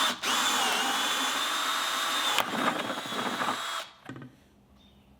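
Power drill boring a hole the size of a PVC pipe through an irrigation box plate, running steadily with a high whine for about three and a half seconds, then stopping.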